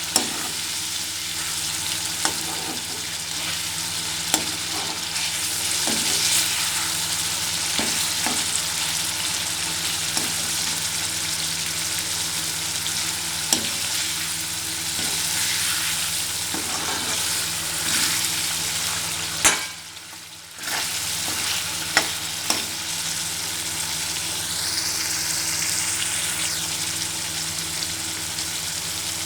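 Chicken frying in hot oil, a steady sizzle with a few sharp clicks through it. The sizzle drops away for about a second roughly two-thirds of the way through.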